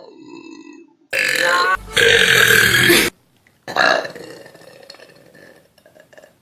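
A person belching loudly for about two seconds, starting about a second in. After a short break a second burp starts suddenly and trails off.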